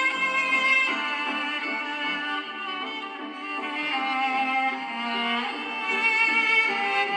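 A preloaded Samsung Galaxy A42 5G ringtone playing: a continuous melody in string-instrument sounds, with the notes changing every second or so.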